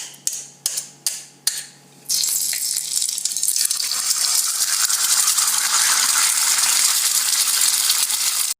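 Four quick clinks, then a loud steady hissing sizzle of food frying, which cuts off abruptly at the end.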